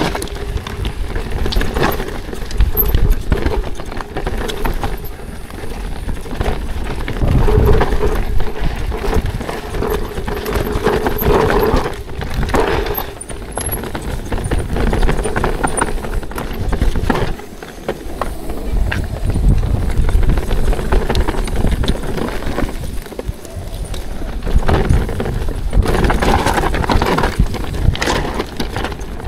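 Mountain bike riding down a rocky trail: tyres and frame clattering over rocks and roots in a continuous, irregular rattle, with a deep rumble underneath.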